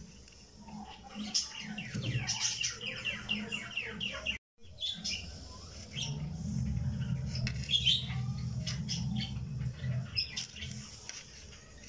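Birds chirping in the background, a quick run of chirps in the first half, cut off by a brief dropout about four and a half seconds in. A low hum comes in for a few seconds after that.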